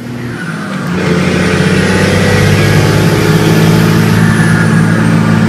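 Cummins inline-six turbo diesel in a six-speed manual pickup, heard from the cab. Its note drops during an upshift into fifth at the start, then picks up about a second in and pulls steadily under load.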